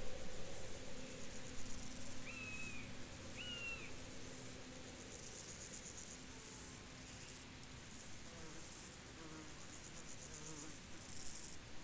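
Field insects trilling in fast-pulsing, high-pitched bursts that start and stop every second or two, over a faint low steady drone. Two short chirps come about two and three and a half seconds in.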